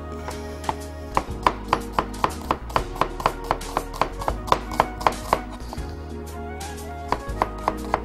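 Chef's knife slicing a red onion into thin feather-cut slices on a plastic cutting board: quick, even cuts about four a second, stopping for about a second and a half before starting again near the end. Soft background music plays underneath.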